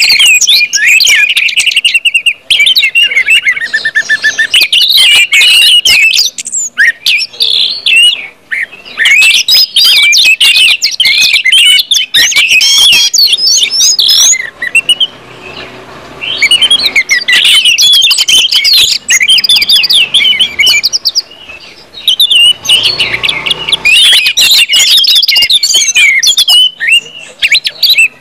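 Orange-headed thrush song: loud, rapid, unbroken 'ngeplong' singing of varied high whistles and trills, with short pauses about fifteen and twenty-two seconds in.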